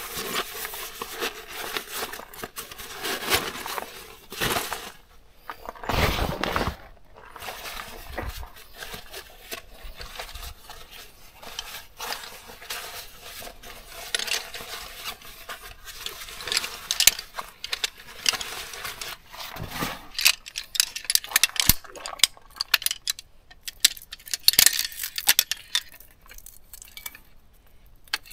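Nylon stuff sack rustling as a folding camp chair is unpacked, then from about halfway on, light metallic clinks and clicks of the chair's shock-corded aluminium poles being fitted together.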